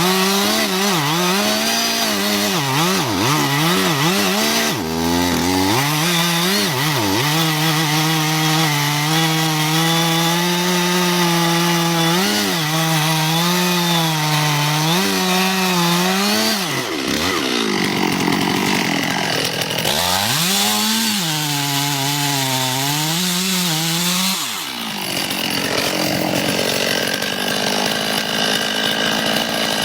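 Chainsaw running at high revs and cutting wood, its engine note sagging and recovering again and again as the chain bites into the cut. Twice, about 17 seconds in and again from about 25 seconds, the steady engine note gives way to a rougher rasping noise.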